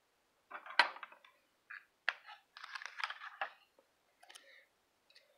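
Crackling and clicking of a plastic pre-roll tube's seal label being peeled off and handled, with one sharp click just under a second in.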